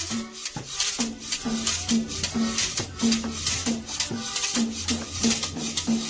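Background music with a steady beat: quick shaker-like percussion over a repeating low bass line and a short repeated note.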